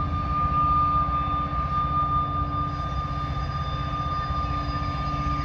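A Norfolk Southern diesel freight locomotive running under load as it crawls slowly along the curve with a long train of loaded hopper cars. A deep, steady engine rumble carries a steady high-pitched whine.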